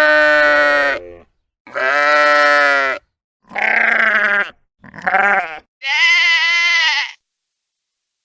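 Sheep bleating: five bleats in a row with short pauses between them, each about a second long, some higher-pitched than others and the last one with a quavering waver.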